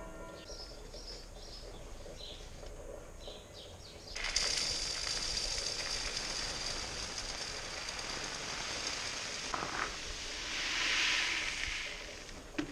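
Sand poured from a plastic bucket into a black tube-shaped sack: a steady hiss starts suddenly about four seconds in, swells near the end and fades out. Before it, birds chirp faintly.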